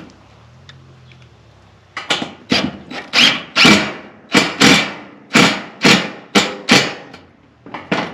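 Screw gun driving a rubber-washered grip-tight screw through a ribbed steel siding panel. A string of about a dozen loud knocks and rattles from the sheet metal, two or three a second, starts about two seconds in.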